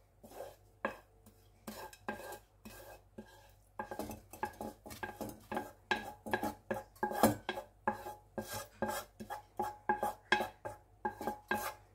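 A wooden spatula scrapes and taps fried onion out of a non-stick frying pan into a glass bowl: a run of quick scrapes and knocks, some of them ringing faintly. They are sparse at first and come thick and fast from about four seconds in.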